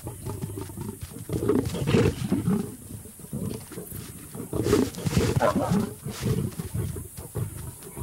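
Lions snarling and growling in a fight as a male lion takes a kill from a lioness. The bursts are irregular, with the loudest about two seconds in and again around five seconds.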